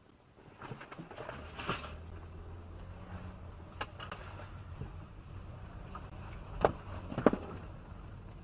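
Low steady rumble of a car driving, picked up inside the cabin by a dashcam, starting about half a second in, with a few sharp knocks; the two loudest come about half a second apart, a little past two-thirds of the way through.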